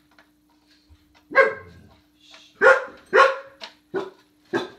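A dog barking, about five short barks beginning about a second in.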